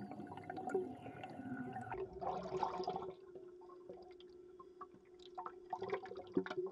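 Water gurgling and splashing around a scuba diver at the surface, with a louder rush of water about two seconds in, over a faint steady hum.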